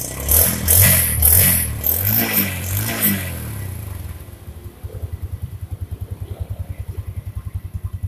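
Yamaha Jupiter Z's single-cylinder four-stroke engine revved up and down a few times for about three seconds, then settling into a steady idle at about eight beats a second. It runs a bit rough (brebet), which the mechanic puts down to the engine still being cold, with its carburettor not yet cleaned.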